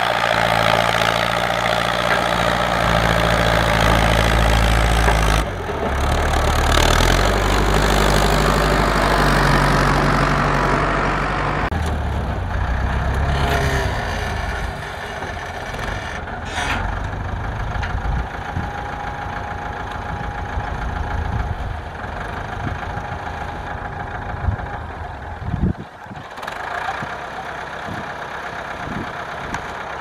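Ford 6600 tractor's diesel engine running under load while pulling a disc plough through dry soil. For about the first twelve seconds there is a loud, steady engine note. After that it turns quieter and rougher, with a rapid knocking beat and one sharp knock near the end.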